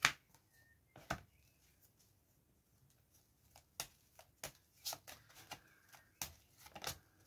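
A deck of tarot cards being cut and shuffled by hand: a sharp card snap at the start and another about a second in, a quiet stretch, then from about three and a half seconds in a run of soft irregular card clicks and slaps, several a second.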